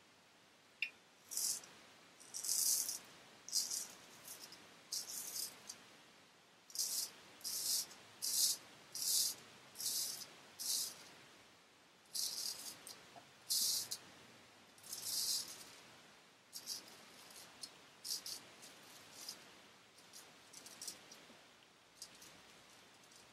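Wet shaving on the face: a run of short, rasping strokes, one or two a second, with brief pauses between groups.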